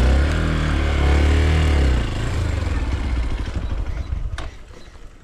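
Hero XPulse 200's single-cylinder engine revving hard for about two seconds, then easing off and fading to a low level about four seconds in, with a single sharp click shortly after.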